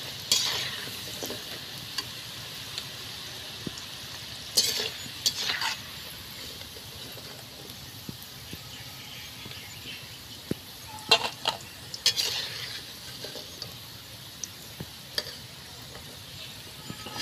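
Meat pakoras deep-frying in hot oil in a metal karahi, a steady sizzle throughout. Several times a metal slotted ladle scrapes and stirs against the pan as the fried pieces are scooped out.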